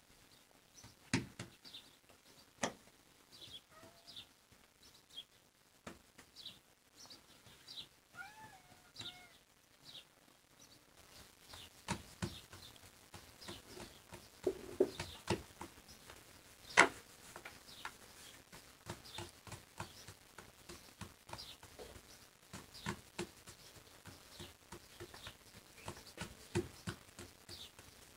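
Hands patting, pressing and slapping out bread dough on a floured round wooden board: soft slaps and sharp taps at uneven intervals. Faint high chirps run underneath, and a short animal cry, like a meow, comes about eight seconds in.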